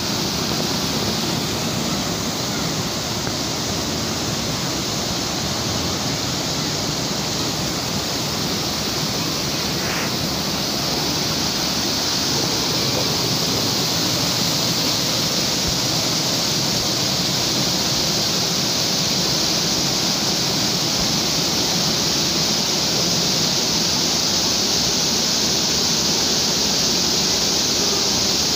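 Muddy floodwater cascading over a stone wall into a channel, a steady loud rush that grows a little louder about halfway through.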